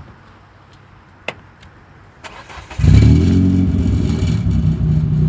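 Renault Clio 3 RS's 2.0-litre four-cylinder being started: a click, a brief crank, then about three seconds in the engine catches loudly, flares and settles into a steady idle through a custom full-tube exhaust that keeps one sport silencer.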